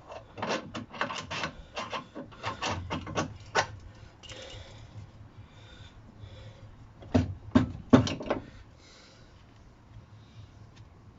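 A scatter of short clicks and knocks from tools and metal suspension parts being handled, with a louder cluster of knocks about seven to eight seconds in.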